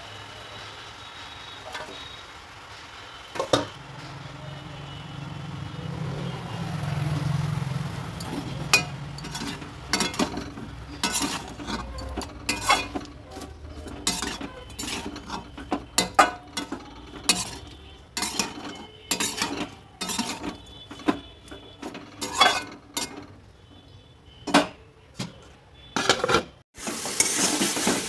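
Perforated metal spatula scraping and knocking against a metal kadai as shredded vegetables are stir-fried, in many quick, irregular strokes from about eight seconds in. Frying sizzle under the stirring, rising to a loud hiss near the end.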